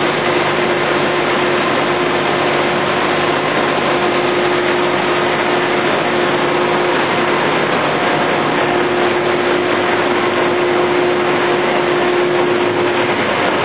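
Machinery of an automated solar panel framing line running: a steady hum with one held tone over dense, even noise.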